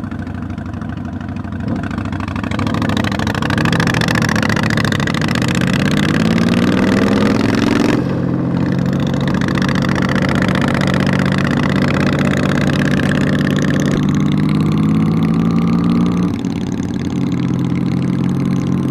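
Honda Magna V4 motorcycle engine pulling away, its pitch rising as it accelerates, with gear changes about eight and sixteen seconds in and steady running between them. Wind rushes across the microphone.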